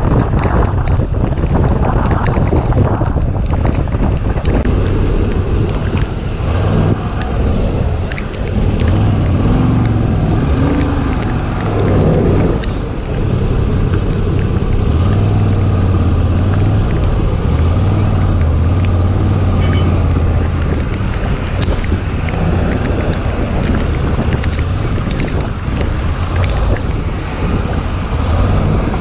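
Wind rushing over the microphone of a moving motorcycle, with the engine and road noise running steadily underneath; a low engine hum comes up clearly through the middle stretch.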